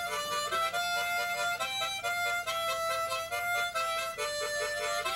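Harmonica played solo: a melody of held notes and quick repeated notes. It is played held the reverse way round, so that it gives the tone of a sanfona (button accordion).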